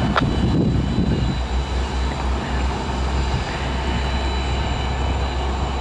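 Metra F59PHI diesel locomotive and its passenger cars rolling slowly past, the engine giving a steady low drone under the noise of the wheels on the rails.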